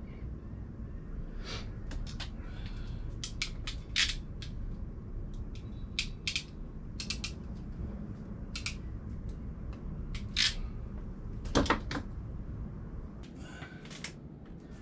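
Irregular sharp clicks and snaps of a hand wire stripper-crimper and wire being worked, with the loudest snaps near the middle and toward the end, over a steady low background rumble.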